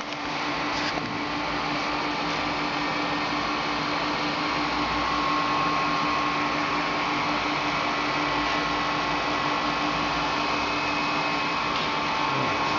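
Water booster pumps and their electric motors running steadily in a pump room: a constant hum with a steady whine.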